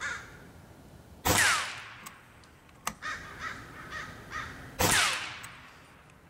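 Two shots from an Evanix Hunting Master AR22 regulated PCP air rifle, about three and a half seconds apart, each a loud report with a short ringing tail. Crows caw in the background between them, and a single sharp click comes about halfway between the shots.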